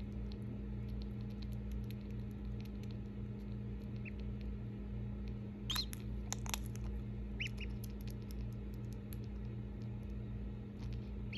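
Newly hatched duckling giving a few short, high peeps through the middle, with faint light ticks like tiny scratching, over a steady low hum.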